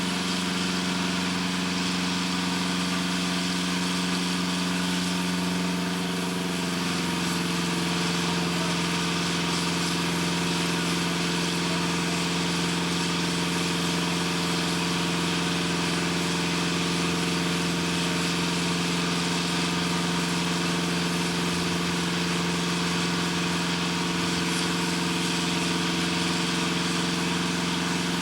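Steady drone of running machinery with a low hum, its tones shifting slightly about six or seven seconds in.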